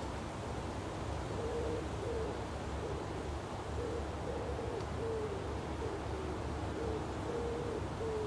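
A dove cooing: a steady run of short, low notes repeated about once or twice a second, over a low wind rumble.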